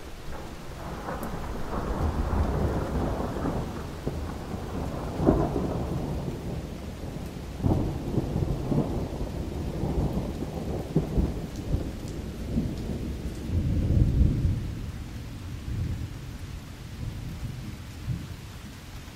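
Thunder rolling over steady rain. Long low rumbles build up early, with sharper claps about five and eight seconds in and the heaviest peal around fourteen seconds, then die away near the end.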